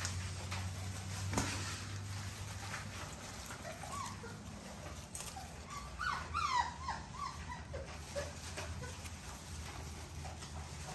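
A litter of American bully puppies whimpering and yipping in short, high squeals, most of them bunched together a little past the middle. Small rustles and scratches from paws in wood-shaving bedding run underneath.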